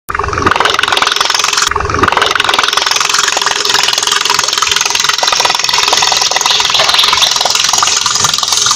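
Small motor of a plastic-bottle toy boat running steadily with a fast buzzing rattle as it drives the propeller.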